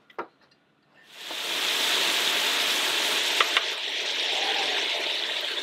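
Chopped bacon hitting a hot Tembo Tusk skottle (a propane disc griddle) and sizzling: the frying starts suddenly about a second in and runs steady and loud, with two sharp clicks partway through.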